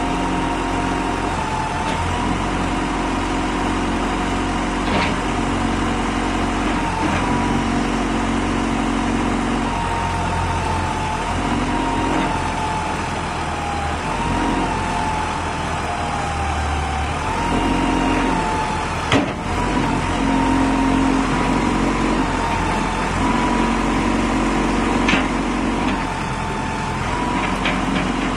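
CAT 420F backhoe loader's diesel engine running steadily near idle. A thin whine shifts up and down in pitch every few seconds, a lower hum cuts in and out, and there are a few sharp knocks.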